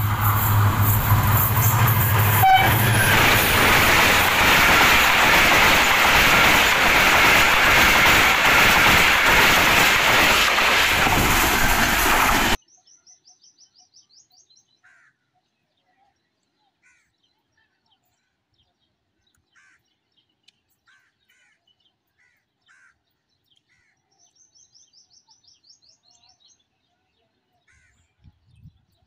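Diesel-hauled passenger train running close by: a loud, steady rush of locomotive and wheel noise, with a low engine drone at first and a single click about two and a half seconds in, which cuts off abruptly about twelve seconds in. After that it is quiet but for faint bird chirps and trills.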